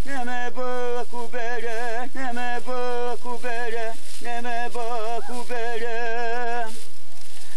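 A single voice singing a chant: held notes with a wavering, trilling pitch, phrase after phrase, breaking off about a second before the end.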